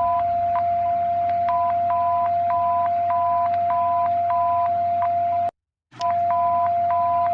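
Emergency alert alarm tone: a steady mid-pitched tone with a higher beep pulsing over it about twice a second. It cuts out completely for about half a second, about three-quarters of the way through, then resumes.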